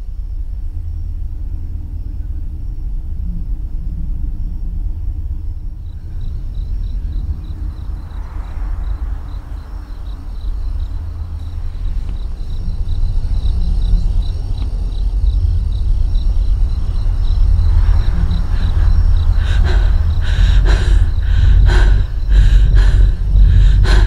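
Suspense sound design from a horror-thriller trailer: a low, steady rumbling drone that swells louder, with a fast, faint ticking joining about six seconds in and a run of heavy hits in the last few seconds.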